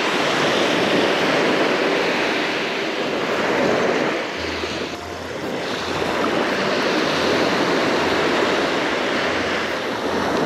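Small surf waves breaking and washing up a sandy beach, a steady rush of water. A low hum comes in and out from about four seconds in.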